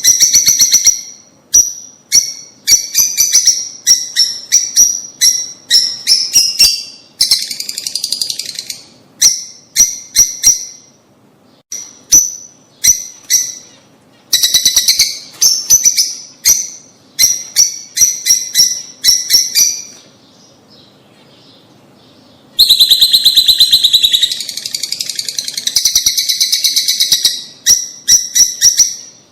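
Lovebirds calling in rapid runs of sharp, high chirps. About two thirds of the way through there is a pause of about two seconds, then several seconds of dense, unbroken chattering.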